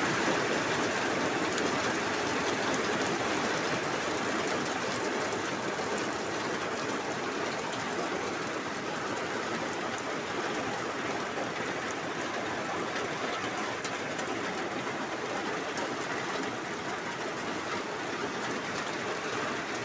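Torrential rain pouring down and drumming on corrugated metal roofing, a steady dense hiss with no let-up.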